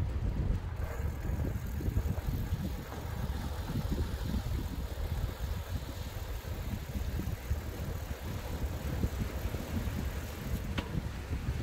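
Low, gusting wind rumble buffeting the microphone of a camera on a moving bicycle.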